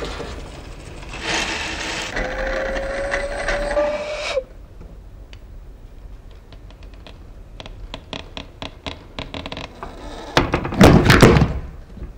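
Water pouring into a pot, its pitch rising steadily as the pot fills, cut off suddenly about four seconds in. Faint scattered ticks follow, then near the end a loud cluster of heavy wooden knocks, the loudest sound here.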